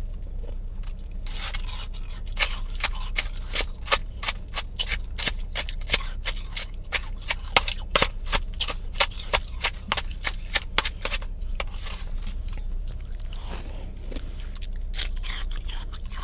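Close-up crunching of powdery freezer frost being chewed, a quick run of crisp crunches about three or four a second that thins out and fades after about ten seconds, over a steady low hum.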